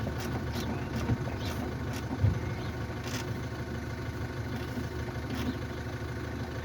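A steady engine-like hum, like a car idling, with scattered light knocks and clicks as a headlight unit is positioned and handled.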